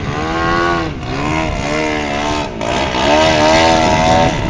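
Engine and propeller of a giant-scale (42%) RC aerobatic plane running hard, its pitch rising and falling over and over as the throttle is worked.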